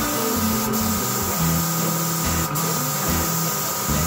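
Gravity-feed air spray gun hissing as it sprays epoxy primer onto a bare-steel car wing. The hiss cuts out briefly twice as the trigger is let off.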